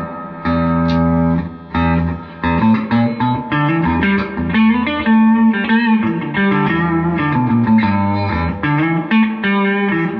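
Electric guitar, a Les Paul replica, played through a 1964 Gibson GA-77RVT Vanguard valve amplifier on its second channel's second input. A couple of held chords are followed by a busier run of notes and chords.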